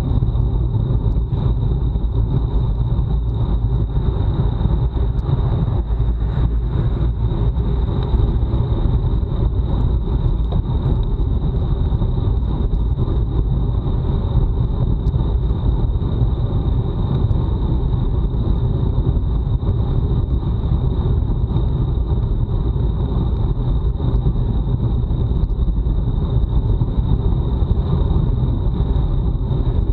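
Wind noise rushing over a bike-mounted Garmin Virb Ultra 30 action camera's microphone, with road and tyre rumble from a road bike ridden fast. The rumble is steady and deep, with a thin steady high whine over it.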